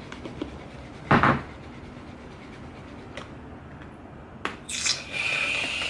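A loud knock on a tabletop about a second in, then, near the end, an aerosol can of Barbasol shaving cream hissing steadily as foam is sprayed out for fluffy slime.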